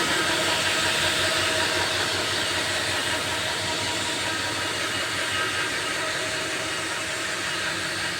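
CNC machine running: a steady hissing noise with a few faint steady tones, easing off slightly in level toward the end.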